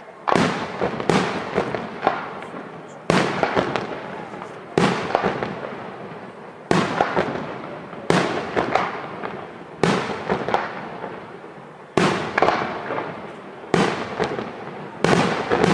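Aerial firework shells bursting one after another, about nine sharp bangs spaced a second and a half to two seconds apart, each trailed by a quick run of smaller pops that fades away.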